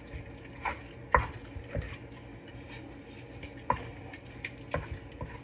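A spoon stirring taco meat and beans in a frying pan, knocking against the pan about five times over a steady low frying sound.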